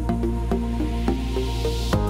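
Electronic background music: held bass with plucked melodic notes, and a hissing swell that rises in the second half and leads into a new section at the end.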